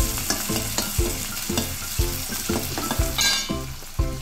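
Chopped onions sizzling as they sauté in hot oil in a kadai, stirred with a steel ladle. A regular beat of about two strokes a second with low tones runs underneath.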